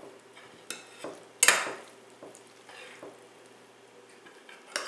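A metal spoon stirring shredded chicken and diced vegetables in a ceramic baking dish, with irregular clinks and scrapes of the spoon against the dish. The loudest is a longer scrape about a second and a half in.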